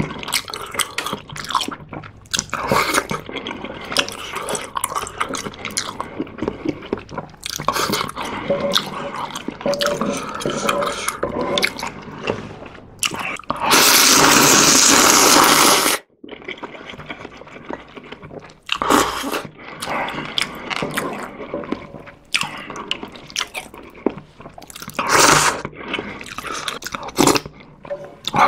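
Close-miked eating of an instant ramen stew: chewing, wet mouth sounds and small clicks of chopsticks and spoon. About halfway through comes one long, loud slurp of noodles lasting a couple of seconds.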